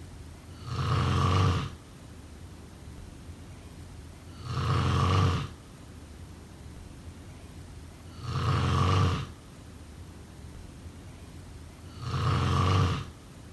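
A person snoring: four snores, each under a second long and about four seconds apart, with faint steady background noise between them.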